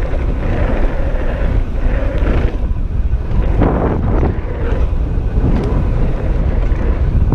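Wind buffeting an action camera's microphone during a mountain-bike ride: a loud, unsteady low rumble.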